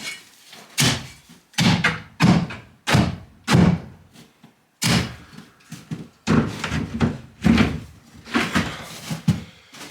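A sticking door being forced open: a dozen or so bangs and thuds as it is shoved and knocked against what holds it.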